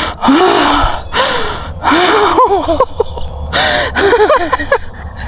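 A woman gasping and panting hard, with short high-pitched cries between the breaths, from excitement just after shooting a turkey.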